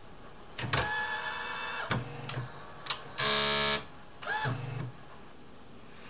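Brother LW-35 typewriter's printer mechanism initializing: a run of clicks and short motor whirs, with a louder steady buzz about three seconds in, before it falls still.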